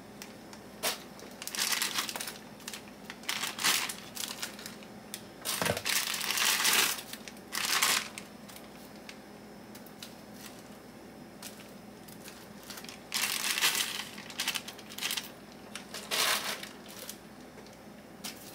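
Plastic packaging crinkling and rustling in several separate bursts as carrots are taken out and added to a crock pot, with a soft thump about six seconds in.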